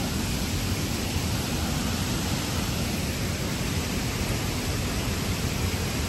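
Steady, even rushing of fast-flowing water, a constant hiss and rumble with no breaks.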